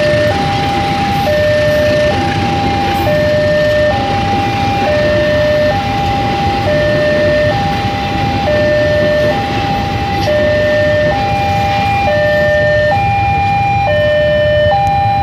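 A railway level-crossing alarm sounds a continuous two-tone hi-lo chime, each tone lasting just under a second. Beneath it is the steady rumble and clatter of a cargo train passing.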